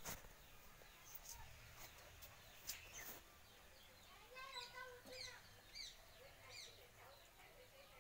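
Faint bird chirping: short falling calls repeated every half second or so from about four seconds in, after a few light clicks.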